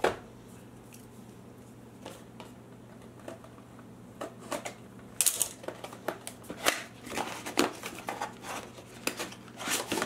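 Scissors cutting the seal on a cardboard AMD FX-8350 processor box, then the box being opened and handled. Scattered small clicks at first, then from about halfway through a quick run of cardboard scrapes and clicks as the inner box is slid out.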